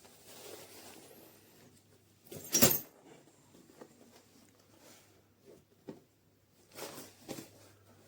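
Handling noise from a small fabric travel backpack being moved about: irregular rustling, with one loud short burst about two and a half seconds in and two shorter ones near the end.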